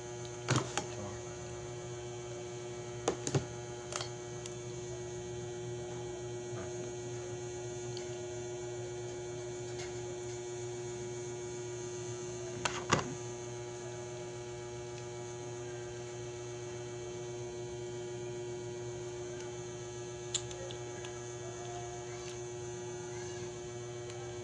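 A steady electrical hum, one pitch with many overtones, with a few short sharp clicks scattered through it.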